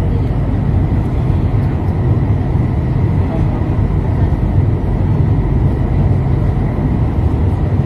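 Metro train running through a tunnel, heard from inside the car: a loud steady low rumble with a faint steady high tone over it.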